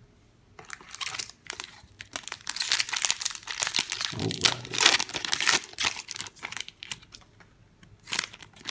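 Foil wrapper of a Magic: The Gathering booster pack crinkling as it is handled and opened by hand, in crackly bursts. There is a lull about six seconds in, then more crinkling near the end.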